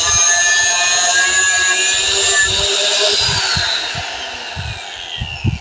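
Electric angle grinder with a cutting disc running loud against galvanized iron (GI) binding wire, a steady high whine. About three seconds in it is switched off and the whine falls in pitch and fades as the disc spins down.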